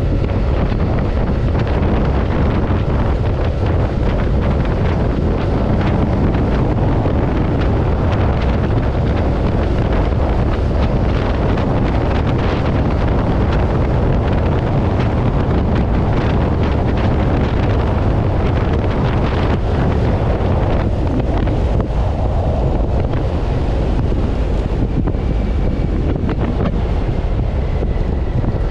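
Loud, steady wind rush buffeting an action-camera microphone while riding a Yamaha NMAX scooter at speed.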